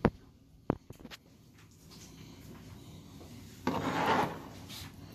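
Kitchen tongs handling a rack of glazed baby back ribs on a plastic cutting board: a few sharp clicks, then about half a second of scraping as the rack is slid across the board near four seconds in.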